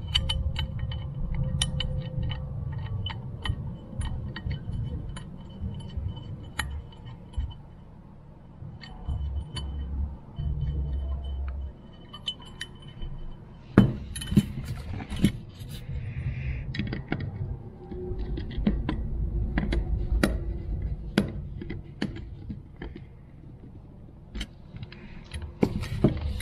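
Light clicks and clinks of a Holley 94 carburetor's cast top half and its small brass parts being handled and fitted by hand, over a low rumble of handling noise, with a few sharper knocks about halfway through.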